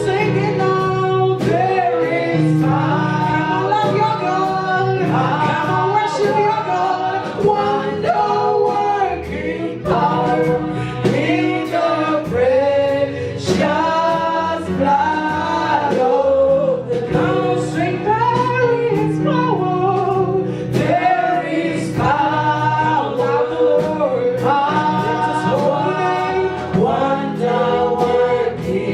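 Gospel worship singing by a choir of male and female voices over instrumental accompaniment with a steady beat.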